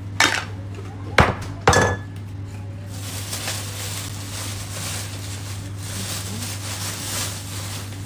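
Kitchen dishes and utensils knocking and clinking three times in the first two seconds, then several seconds of steady hissing.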